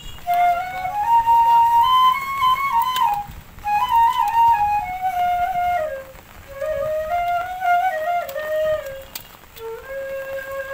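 Background music: a solo flute playing a slow melody in short phrases, with brief breaks between them.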